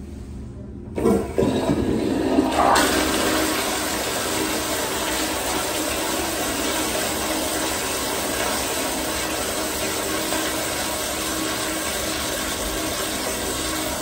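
American Standard toilet flushing: a sudden rush of water starts about a second in, then settles into a steady rush of water swirling through the bowl.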